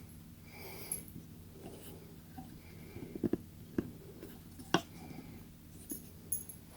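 Light handling noise: soft rubbing with a few sharp clicks and knocks, the loudest a little under five seconds in.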